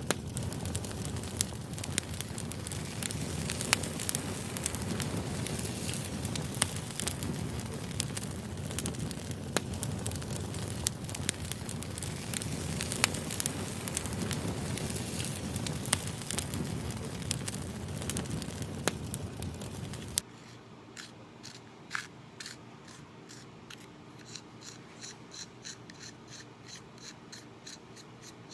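Firewood fire crackling and hissing, which cuts off suddenly about two-thirds of the way through. That leaves a pencil scratching on paper in quick strokes, sped up to four times.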